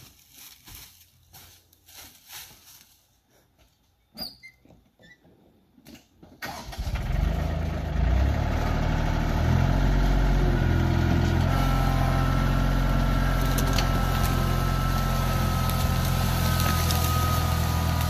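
Small footsteps and knocks, then a compact tractor's engine starts about a third of the way in and runs steadily. Its pitch steps up a little a few seconds later as the tractor pulls away dragging a chained log.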